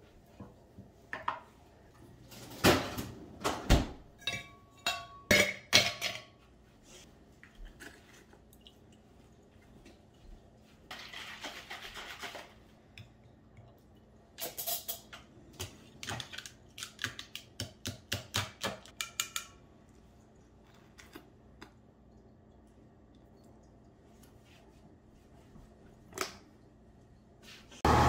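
Kitchen clatter as a drink is made at a granite counter: a steel tumbler, a creamer bottle and utensils knocked and clinked as they are handled, with a quick run of light clinks about two-thirds of the way through.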